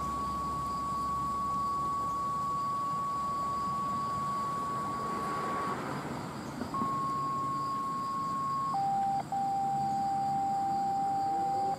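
A sequence of steady electronic beep tones, each a single held pitch. A high tone holds for about six seconds and, after a short pause, a slightly lower tone sounds for about two seconds. Then a lower tone runs for about three seconds, with a brief break partway through.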